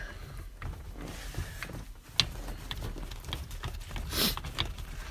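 Irregular clicks and taps of hand tools and metal parts being worked on a car's shifter, with one short spray hiss about four seconds in: a squirt of WD-40 onto seized screws.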